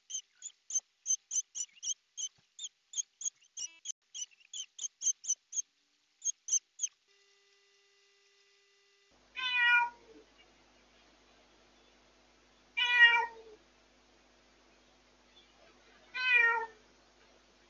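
A newly rescued former stray cat meows loudly three times, about three and a half seconds apart, picked up by a pet-monitoring camera's microphone. This is the insistent crying of a rescued stray still getting used to life indoors. Before the meows there is a quick series of short, high chirps, about four a second, that stops about seven seconds in.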